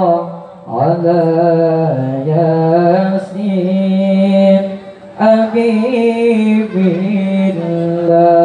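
A young man's voice in melodic Arabic recitation, amplified through a microphone: long, ornamented held notes that bend up and down, with short pauses for breath about half a second in and again around five seconds in.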